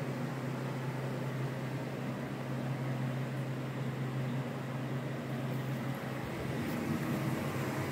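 Steady low hum with an even hiss of moving air from a running fan.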